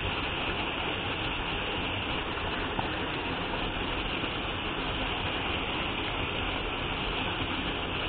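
Waterfall plunging into a rock pool: a steady, even rush of falling water.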